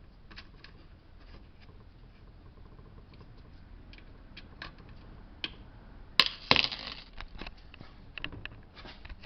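Scattered light clicks and taps of a screwdriver and small metal parts being handled on a car radio, with a sharp clatter about six seconds in.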